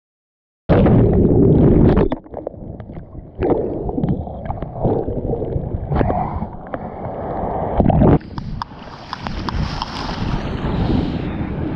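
After a moment of dead silence, ocean whitewater sloshes and splashes right at the microphone, with muffled, gurgling surges as water washes over it. A loud surge cuts off about eight seconds in, and a steadier hiss of foam and spray follows.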